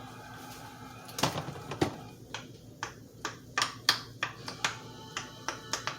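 Silicone pop-it fidget toy being pressed bubble by bubble: a run of sharp little pops, about three a second, starting about a second in.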